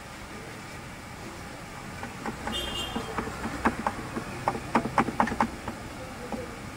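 A run of about a dozen irregular knocks and clatters over about three seconds, with a brief high tone among them, over a steady background hum.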